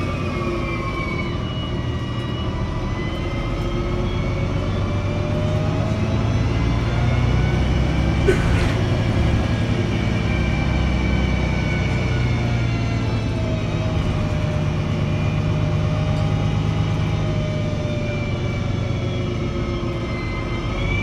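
MAN NL223 city bus heard from inside the cabin while driving: a steady diesel drone, with whining tones from the engine and driveline that fall and rise in pitch as the bus slows and picks up speed. A single short knock comes about eight seconds in.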